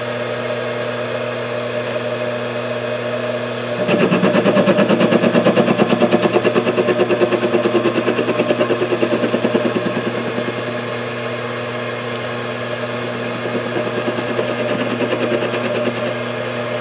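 Mini lathe running at about 580 rpm with a steady motor hum. About four seconds in, the tool starts a facing cut on the part in the chuck: a louder, fast rhythmic chatter that eases off after several seconds and fades away near the end.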